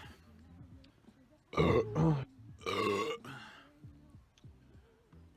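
A man burping twice, the first about a second and a half in and the second just under a second later, each lasting well under a second: belches brought up from the gas of beer drunk fast.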